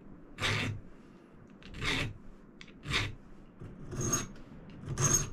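Hand file sharpening a dull steel drill bit: five separate rasping strokes about a second apart, the later ones with a thin high ring.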